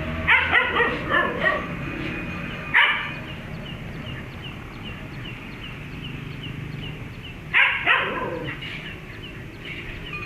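Dog barking in bursts: a quick run of barks at the start, a single bark about three seconds in, and another short run of barks near eight seconds.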